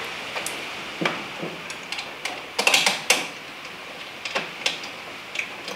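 Scattered clicks and knocks of a car's front bumper being handled and bolted on, with a cluster of quick knocks near the middle.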